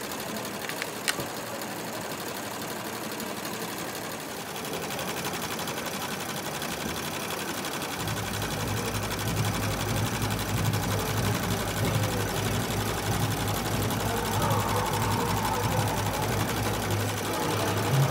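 Melco multi-needle embroidery machine running, its needles stitching rapidly and evenly through a felt boot. There is one sharp click about a second in, and the running grows louder with a low hum from about halfway.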